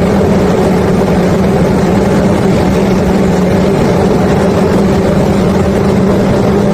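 Engine of the barge-unloading machinery running steadily at a constant pitch over a continuous rushing noise.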